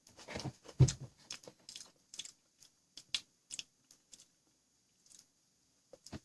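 Biting into and chewing a crunchy potato snack. A loud crunch comes about a second in, then a run of smaller crunches that thin out and grow sparse.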